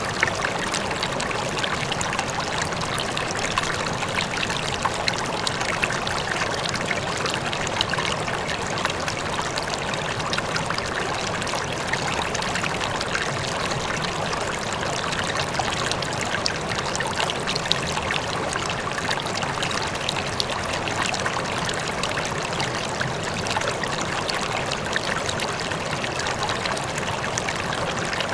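River water flowing and babbling steadily over stones, an even rushing with small splashes flickering through it.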